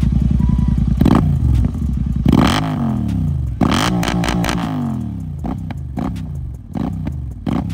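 Royal Enfield Continental GT650's 648 cc parallel-twin engine through an aftermarket Red Rooster exhaust, idling and then blipped by the throttle several times, each rev climbing and falling back. In the second half the engine settles with short sharp pops and bangs from the exhaust.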